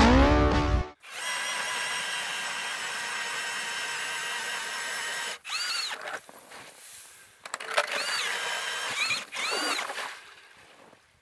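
Power ice auger boring a hole through lake ice: a steady motor whine for several seconds that cuts off about five seconds in, then several shorter runs that rise and fall in pitch.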